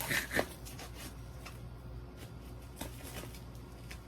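Plastic packaging and bubble wrap crinkling and rustling as a parcel is handled and opened, with a few louder crinkles at the start and quieter handling after.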